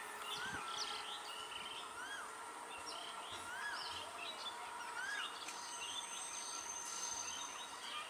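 Birds chirping, one repeating a short rising-and-falling note about every one and a half seconds among quicker twitters, over a faint steady background hum and a thin high whine.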